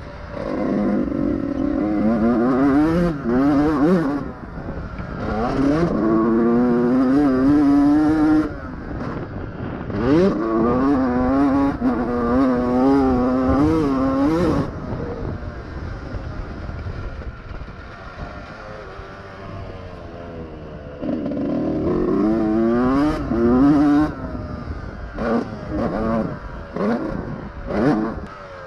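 2001 Honda CR125 single-cylinder two-stroke engine run hard in repeated bursts, its pitch climbing and dropping as the gears change. Several seconds of quieter, off-throttle running come midway, followed by more revving bursts.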